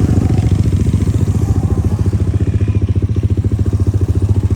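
Motorcycle engine running steadily, with an even, rapid pulse of firing strokes and no change in speed.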